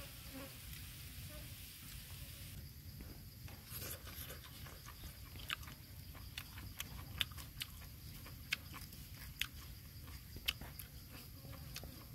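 Insects buzzing steadily. From about two and a half seconds in, it is joined by irregular, sharp, wet clicks of close-up chewing.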